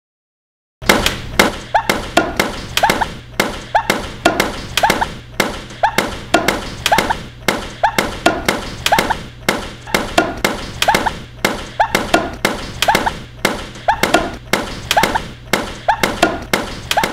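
A rapid run of sharp thuds, about two or three a second, over a steady low hum, starting suddenly about a second in.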